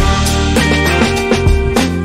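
Upbeat background music with a steady drum beat and sustained melody notes.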